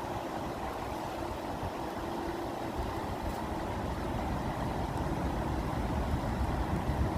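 Flowing water running steadily, a continuous noise weighted toward the low end.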